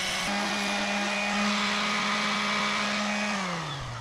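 Random orbital sander running against an HDPE plastic block, a steady motor hum with sanding hiss. About three and a half seconds in it is switched off, and the hum falls in pitch as the motor winds down.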